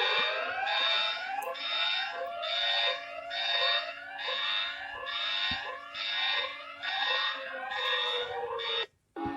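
Synthesized emergency-alert alarm tone: overlapping electronic sweeps rising in pitch, with a high beep pulsing in step, repeating about three times every two seconds. It cuts off abruptly near the end.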